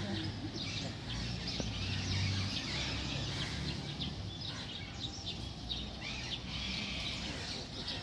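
Birds chirping and calling in an aviary: many short, quick chirps, one after another, over a low steady rumble that swells about two seconds in.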